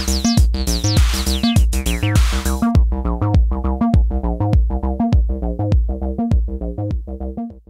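Eurorack acid-bass patch: a 303-style filtered synth bass line over a steady four-on-the-floor 909-style kick drum, about two kicks a second, with the bass ducked and pumping on each kick by side-chain VCA gain control. For the first few seconds the filter squelches with bright falling sweeps and ticks on top. Then the top end falls away and the bass turns duller, dropping in level just before the end.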